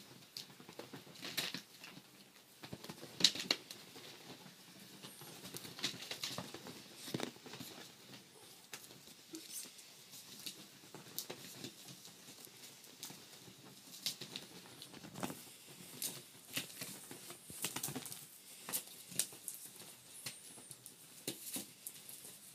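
Siamese kittens scampering and scrabbling as they chase a paint brush: irregular light scratches and taps, with the loudest knock about three seconds in.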